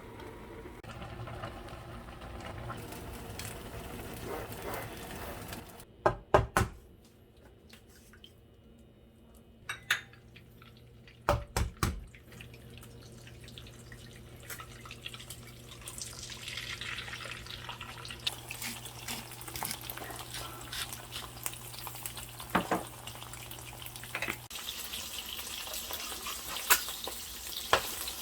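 Kitchen sounds in several short cuts: water running from a tap into a sink, with a few sharp clatters of dishes.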